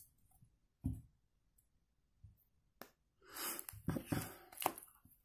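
Tarot cards being handled: a soft thump about a second in, a single click, then faint rustling and light taps of cards being drawn and turned over in the last two seconds.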